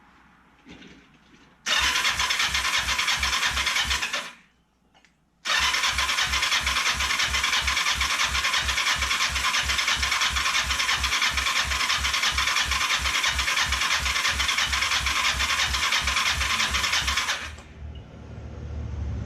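Kawasaki Ninja 500 parallel-twin motorcycle engine cranking on its electric starter with an even pulsing rhythm, in a short burst and then a long one of about twelve seconds. It does not fire: the bike has spark and compression, and the owner suspects the fuel tank is not feeding it any fuel.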